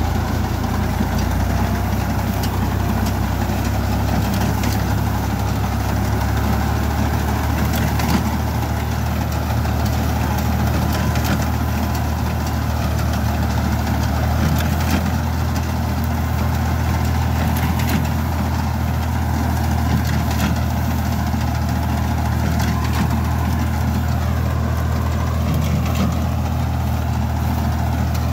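Diesel tractor engine running steadily under load as it drives a front-mounted BCS reaper binder cutting standing wheat, with a faint clatter of the reaper's machinery over the engine hum.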